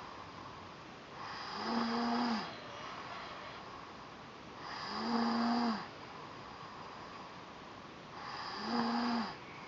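A young child's stridor from laryngomalacia, a month after a second supraglottoplasty. Three noisy breaths come about three seconds apart, each carrying a steady, pitched, crowing tone, with quieter breathing between them.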